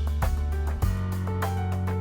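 Background music: a pop-style track with steady bass notes, plucked guitar and a regular drum beat.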